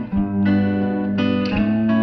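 Instrumental background music on guitar, ringing notes with a new note or chord struck a few times.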